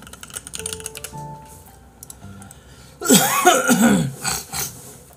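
A man coughs and clears his throat in a few harsh bursts starting about three seconds in, over soft background music.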